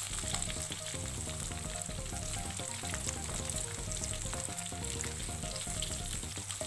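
Chunks of meat deep-frying in hot oil in a steel wok, a steady sizzling crackle, stirred with a spoon.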